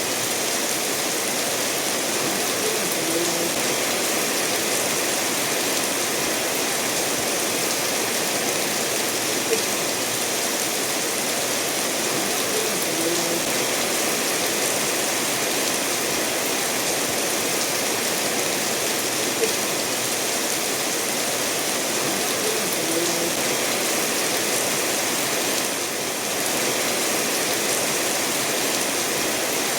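Steady rain falling together with a stream running over stones: an even, unbroken hiss of water.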